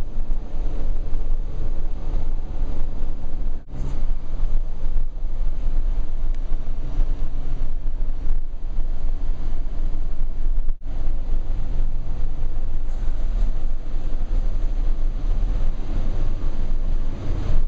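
Steady low road and engine rumble inside a moving car, cutting out for an instant twice.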